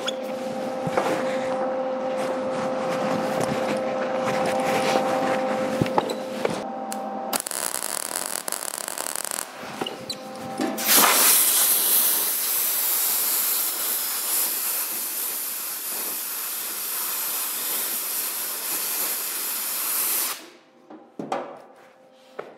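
MIG wire welder laying a weld on a steel fender patch: a loud, even crackling hiss that runs about nine seconds and cuts off suddenly near the end. Before it, a steady machine hum with a couple of fixed tones.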